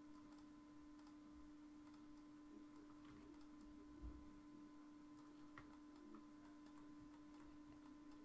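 Near silence: a steady faint hum with a few soft, irregular computer-mouse clicks.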